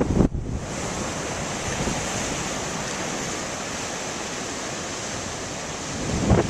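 Large waves breaking, a steady rushing roar of surf, with wind buffeting the microphone in loud low blasts right at the start and again near the end.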